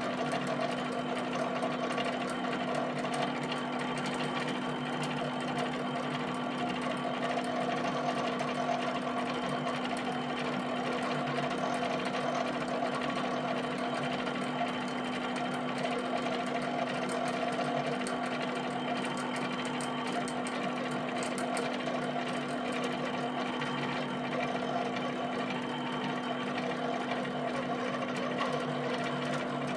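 HP 7585B pen plotter drawing: its carriage and paper-drive motors whir and buzz without pause as the pen moves across the sheet, over a constant low drone.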